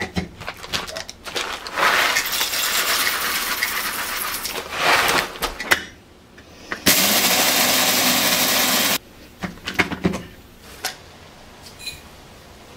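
Coffee beans poured into the hopper of an electric coffee grinder, a dense rattle lasting about three seconds. After a pause the grinder runs steadily with a low hum for about two seconds and stops abruptly. Scattered clicks and knocks of handling come before and after.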